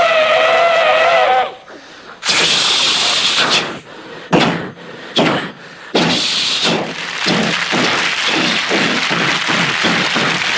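Mouth-made war sound effects from a comic impressionist. A held, wavering siren-like wail breaks off about 1.5 s in. Harsh noisy blasts and sharp cracks follow, then a long rushing noise with a quick pulsing texture.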